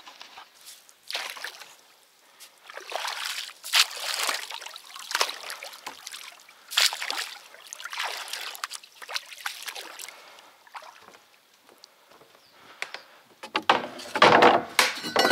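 A wooden pole dipping and pushing a small boat through shallow water: splashing and dripping strokes, roughly one a second, with quiet gaps between. A louder clatter and knocking near the end.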